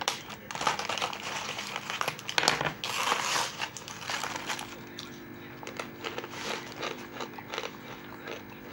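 Plastic film lid on a tray of roasted peanuts being slit with a knife and peeled back, crinkling and crackling. The crackle is busiest over the first four seconds, then thins to scattered clicks.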